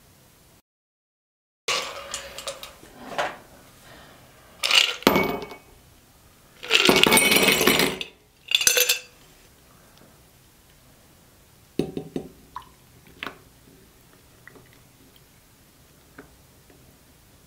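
Ice cubes rattling and clinking into a glass tumbler from a glass pitcher, in several loud clattering bursts, the longest over a second. Then a few sparse, lighter clinks.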